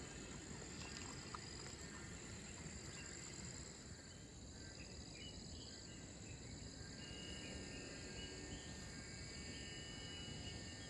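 Faint outdoor ambience: insects chirring steadily at a high pitch over an even low background noise, with a few short higher calls in the second half.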